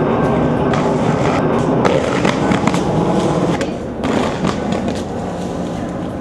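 Aggressive inline skates rolling and grinding down a rough concrete bank and stair ledge: a loud, rough scraping roll that starts with a sharp hit. A fresh scrape comes about four seconds in.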